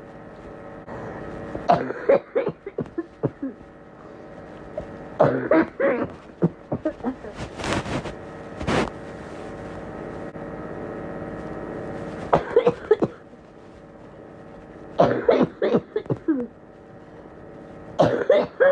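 People coughing in repeated bouts of short, sharp coughs, grouped in clusters a few seconds apart, over a steady low hum. Two short bursts of noise come about eight seconds in.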